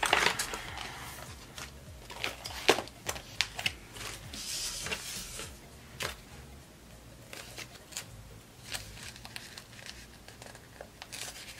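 Paper sticker sheets and pages being handled: rustling and flexing paper, with scattered sharp clicks and taps, the loudest near the start and about two and a half seconds in.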